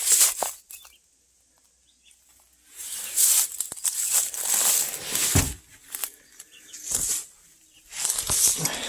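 Irregular rustling and crunching, with two dull thumps in the middle, after a short spell of near silence near the start.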